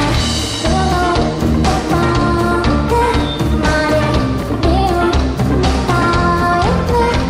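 Pop band playing live: a woman sings the lead melody over electric guitar, bass and drums with a steady beat.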